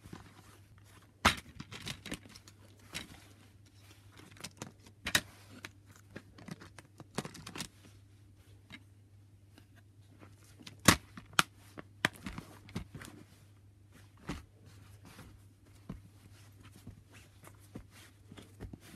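Handling noise from a plastic DVD case being tapped, opened and handled: a scatter of sharp clicks and knocks, the loudest about a second in and twice about eleven seconds in, over a faint low hum.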